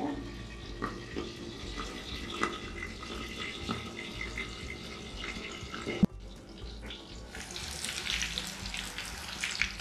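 Catfish pieces deep-frying in hot oil in a kadai: a steady sizzle with small pops, muffled at first under an aluminium lid that is there to catch the spattering fish. A sharp click about six seconds in, and soon after the sizzle comes through louder and brighter with the pan uncovered.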